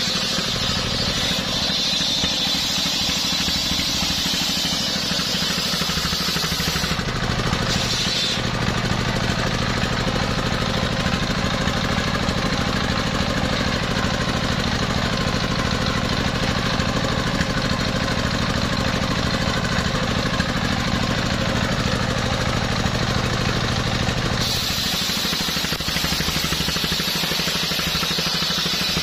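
Engine-driven circular sawmill running steadily while its large blade rips a coconut-palm trunk lengthwise. About seven seconds in the engine's low hum grows stronger and the hiss above it fades; both return to their earlier balance near the end.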